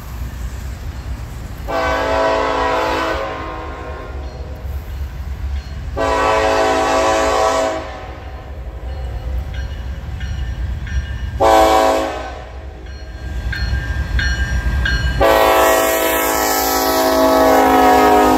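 Norfolk Southern Dash 9 locomotive's K5LLA air horn blowing the grade-crossing signal: two long blasts, a short one and a final long one, over the low rumble of the approaching diesel locomotives.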